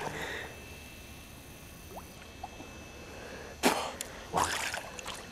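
Low, even water ambience, then about three and a half seconds in two short, sharp bursts less than a second apart as a man breaks the surface of the river, splashing and blowing out a breath.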